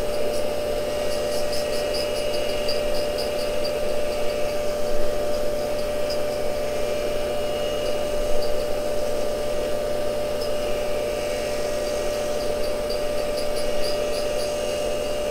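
Cincinnati tool and cutter grinder running with a steady whine while grinding an endmill, with two short runs of faint rapid ticking, about four a second, near the start and again near the end.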